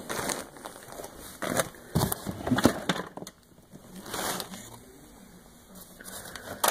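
Paper-faced fiberglass insulation batts crunching and crinkling under a person's feet and knees in irregular bursts, with a few sharp knocks from the wooden framing.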